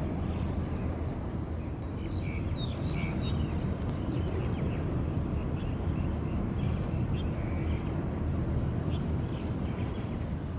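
Steady low rumble of a large container ship's diesel engine and hull passing close by, with a few faint high chirps about two to three seconds in.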